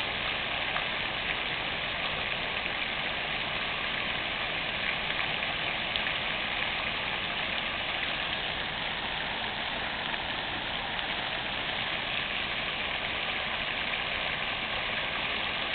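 Fountain water splashing steadily.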